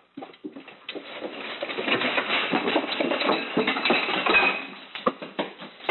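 A dog scrambling across a leather couch and a blanket: a dense rustling and scuffling full of small clicks, building up and dying down near the end.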